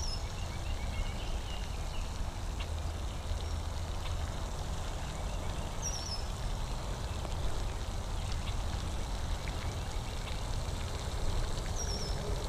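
Outdoor ambience: a steady low rumble with a faint even hiss, and a short high chirp that comes three times, about six seconds apart, with a few faint small clicks between.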